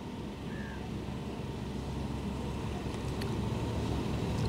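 Low engine rumble from a distant motor vehicle, slowly growing louder, with a short high chirp about half a second in.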